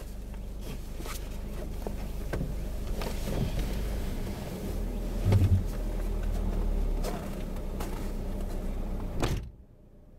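Inside a parked Toyota car: a steady low hum of the car running, with scattered clicks and knocks and one heavy thump about five seconds in, like the car door shutting. The hum cuts off abruptly near the end.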